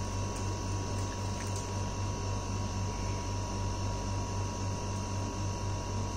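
Steady low electrical hum with a thin, steady high tone above it and an even hiss. A few faint ticks.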